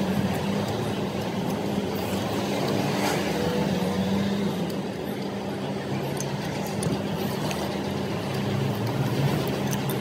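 Steady hum of vehicle engines and road traffic, with faint light clicks of chopsticks against a ceramic bowl.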